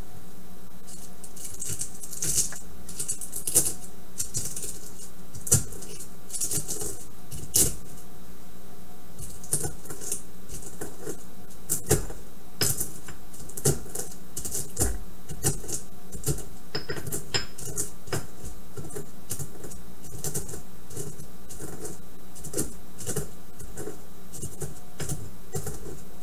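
A pestle grinding and knocking in a mortar, crushing dried hibiscus flowers with ginger pieces into loose-leaf tea: irregular sharp clicks and knocks, with bursts of dry crunching and scraping that are strongest in the first several seconds.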